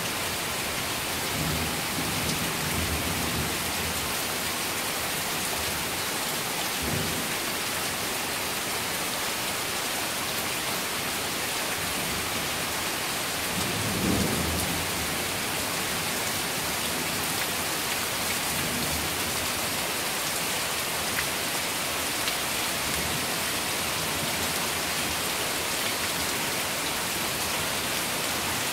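Heavy rain falling steadily in a thunderstorm, with low rolls of thunder; the loudest rumble comes about halfway through.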